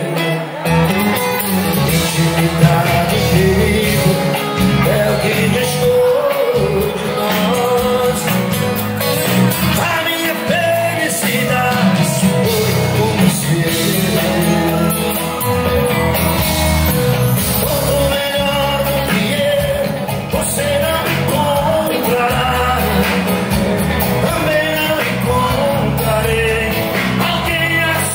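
Live sertanejo band music with a male lead vocal singing over guitars, keyboards and drums, played through a PA in a large hall.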